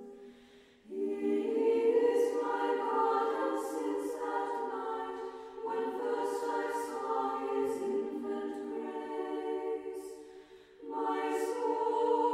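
Background music: a choir singing slow, sustained phrases, with brief dips between them about a second in, near the middle and near the end.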